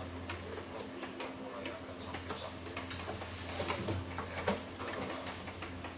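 Brother T720 inkjet printer mechanism clicking and ticking irregularly over a steady low hum, as during its long ink-charging cycle.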